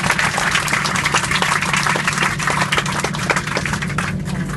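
A cabin full of passengers applauding, many hands clapping at once, dying away about four seconds in, over the aircraft cabin's steady low hum.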